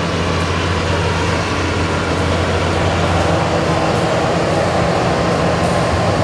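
Large Hitachi hydraulic excavator's diesel engine running steadily with a deep hum. From about halfway, a rushing of rock as the loaded bucket empties into a dump truck.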